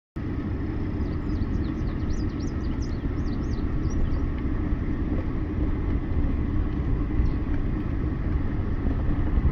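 A motor vehicle running with a steady engine and road rumble, with a few brief high chirps about two seconds in.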